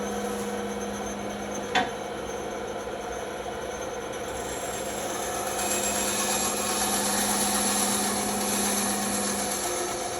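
Bandsaw running and cutting a wooden cutout: a steady motor hum under the hiss of the blade through the wood, which grows louder from about halfway. A single sharp click comes just under two seconds in.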